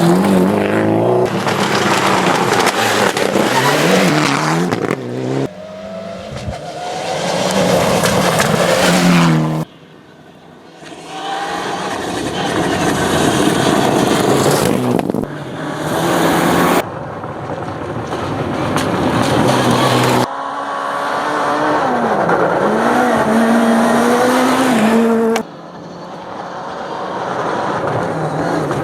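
Rally cars at full throttle on gravel stages, in several short clips cut one after another; engine pitch climbs and drops with each gear change, over a steady hiss.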